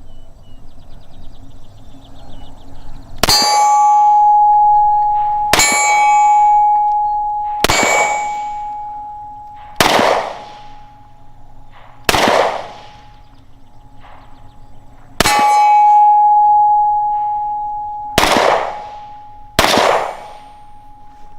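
Eight slow, evenly paced 9mm pistol shots from a Springfield XDM Compact, each answered by the clear ringing clang of a hit steel target. The ring lasts a second or two and fades out.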